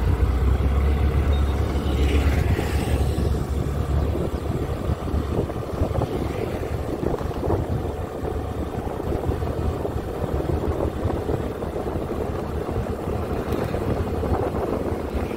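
Motorcycle running at road speed, its engine heard under a rough rush of wind over the microphone, heaviest in the first couple of seconds.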